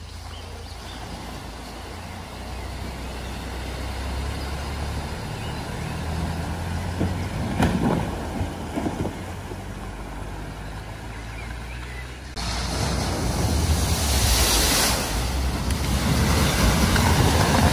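Car engine running as an estate car wades through a flooded ford, water splashing around its wheels, with a few sharper splashes around the middle. About two-thirds of the way in, it switches to an SUV ploughing through fast, and a loud, sustained rush of spraying water drowns the engine.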